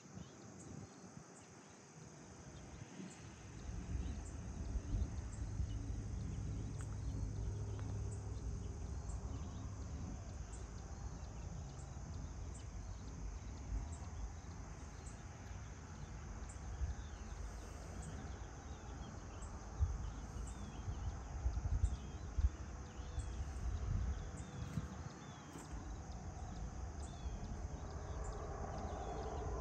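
Rural dawn ambience of insects, likely crickets, chirring in a steady high drone, with a faint regular tick about once a second above it and short bird chirps here and there. A low rumble comes in a few seconds in and is the loudest part.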